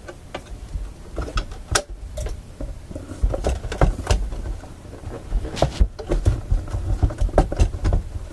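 Irregular clicks, knocks and rattles from a record changer's mechanism being handled and tugged at in its wooden cabinet, with low thumps; the unplugged changer is stuck and will not lift out.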